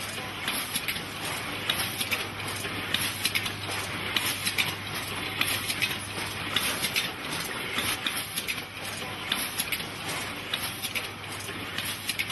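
Automatic condom packaging machinery running, with rapid irregular clicking and clattering over a steady machine noise. A low hum underneath stops a little over halfway through.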